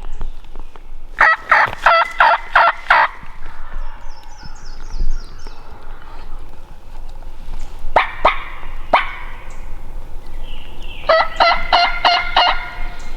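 Wild turkey gobbling twice, a rapid rattling gobble in the first few seconds and another near the end. Between them a small bird gives a short, high, falling trill, and there are two sharp single notes.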